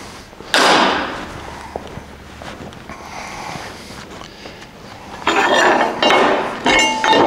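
Metal clanking and scraping as steel pieces are handled: a loud clank about half a second in that dies away over a second, then from about five seconds in a run of clatter with short metallic ringing.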